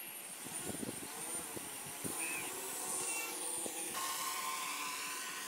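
Quadcopter drone's electric motors and propellers buzzing with a steady high whine; the sound changes abruptly about four seconds in as a different drone is heard.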